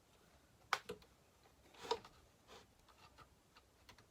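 A few light clicks and knocks of small chainsaw parts being handled and fitted. The sharpest comes about three quarters of a second in, and another about two seconds in.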